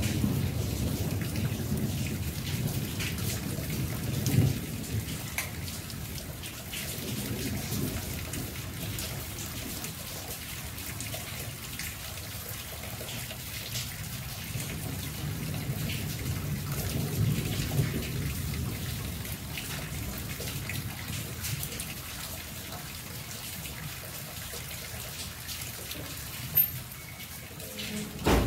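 Steady rain falling on trees, bushes and wet ground, a fine even hiss dotted with drop ticks. Low rumbles swell and fade several times underneath.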